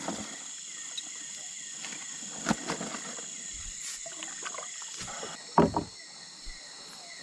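Steady night chorus of crickets and other insects, with a few knocks from a small boat, the loudest about two and a half and five and a half seconds in.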